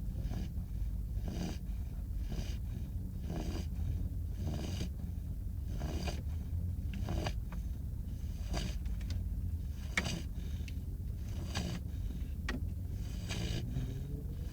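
A five-month-old beagle puppy snoring in its sleep, giving short noisy breaths roughly once a second, over a steady low hum.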